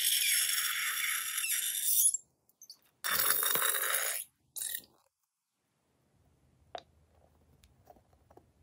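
Blue liquid slime squeezed out of a balloon through its plastic nozzle, hissing and sputtering out onto a tray of slime. There is a long burst lasting about two seconds, then a shorter, fuller one about three seconds in.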